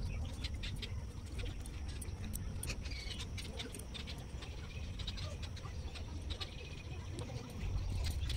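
Outdoor ambience: a steady low rumble of wind buffeting the phone microphone, with scattered small clicks and faint high chirps, likely birds. The chirps are clearest about three seconds in.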